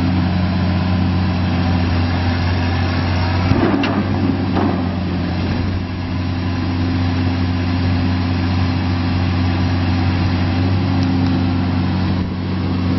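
Diesel engine of a Casagrande B105NG hydraulic piling drill rig running steadily as the drill auger is lowered on its mast, with two short, sharper noises about three and a half and four and a half seconds in.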